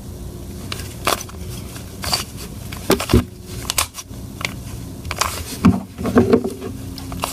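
Plastic Rubik's cube faces being turned by hand: irregular clicks and short rasps as the layers snap round, about a dozen in a few seconds.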